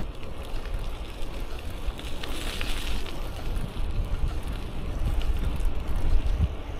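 Wind buffeting an action camera's microphone while riding a bicycle: a steady low rumble with a brief hiss about two and a half seconds in.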